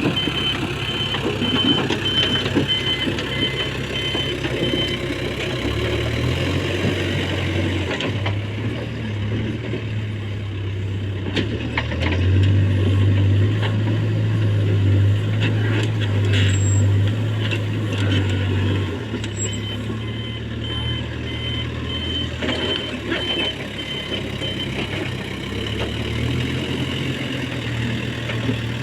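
JCB 3DX backhoe loader's diesel engine running under load while digging, getting louder for several seconds in the middle as it works harder, with scattered knocks. A rapid high-pitched beeping alarm sounds for the first few seconds and again later on.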